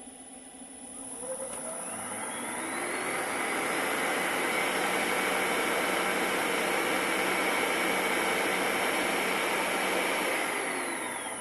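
Electric motor with freshly replaced bearings spinning up with a rising whine over about two seconds, running steadily at full speed with a rushing hum, then switched off and winding down near the end.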